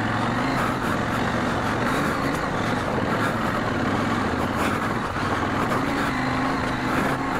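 Parallel-twin adventure motorcycle engine running under way at fairly steady revs, over a steady hiss.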